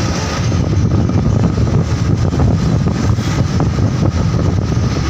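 A vehicle on the move: steady engine and road noise with a strong low rumble.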